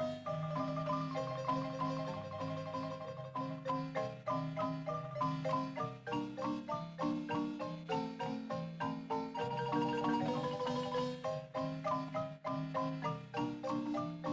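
Marimba music: a lively tune played in short, quickly repeated mallet strokes over a lower bass part.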